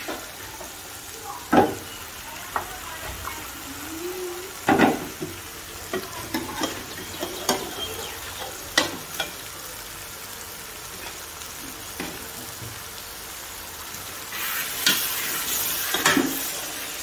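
Tomato-and-spice masala sizzling in an aluminium karahi while a wooden spatula stirs it, knocking against the pan now and then. Near the end the sizzle gets louder as the boiled beef goes into the pan.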